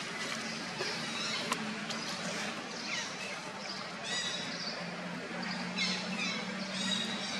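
Outdoor background with birds chirping a few times, short sweeping calls about four, six and seven seconds in, over a low steady hum that sets in halfway through.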